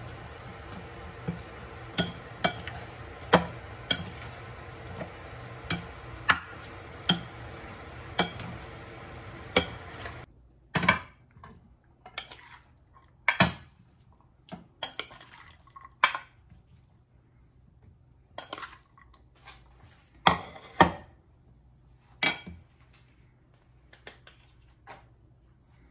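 A spoon stirring chopped octopus in a bowl, knocking against its sides, then scooping and scraping the mix onto a plate, with sharp clacks every second or so. A steady background hum stops about ten seconds in.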